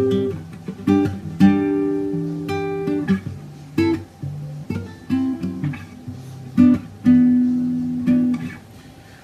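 Acoustic guitar strumming and picking chords, each chord struck sharply and left to ring before the next.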